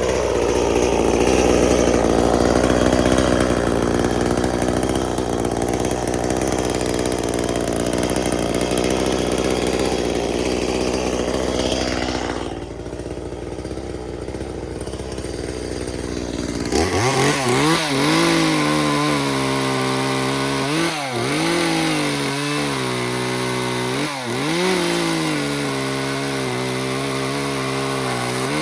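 Echo CS-400 40cc two-stroke chainsaw running at high revs and cutting wood. In the second half the engine note dips and recovers several times as the chain bites and the load comes and goes.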